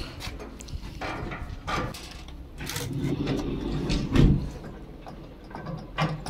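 Irregular knocks and clatter of metal barbecue grill parts being handled and fitted together during assembly, with a louder knock about four seconds in.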